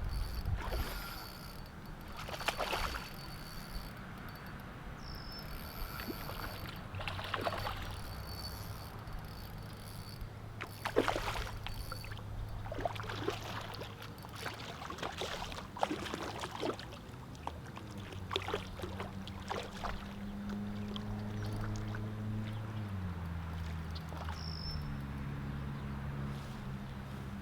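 Splashing and sloshing water in irregular bursts as a hooked channel catfish thrashes near the bank, with crickets chirping. A low steady motor hum comes in during the second half and drops in pitch near the end.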